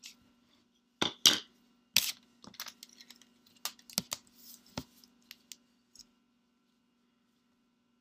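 Plastic drawing tools handled on paper on a desk: a compass put aside and a plastic drafting template laid down and shifted into place, giving a string of irregular clicks, taps and knocks that stop about six seconds in. A faint steady low hum runs underneath.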